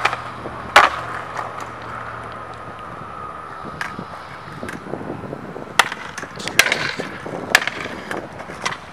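Skateboard wheels rolling on concrete, with sharp clacks from the board. The loudest clack comes about a second in, and several smaller ones follow in the second half.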